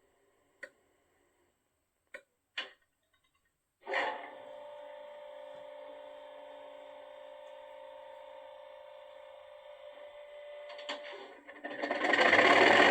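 Sound-fitted OO gauge Class 37 model locomotive playing its warm engine start through its loudspeaker. A few clicks come first, then a steady hum with a fixed pitch for about seven seconds. Near the end the diesel engine turns over and fires with a loud rush.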